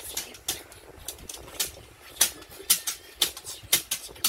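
A child beatboxing: sharp, click-like mouth-made snare and hi-hat sounds in a steady beat, about two strong hits a second with lighter ones between.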